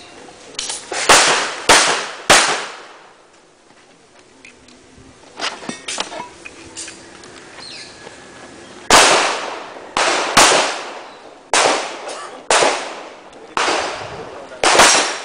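Pistol shots fired during a practical shooting stage: three quick shots about half a second apart, a pause of several seconds, then a string of about seven shots roughly a second apart.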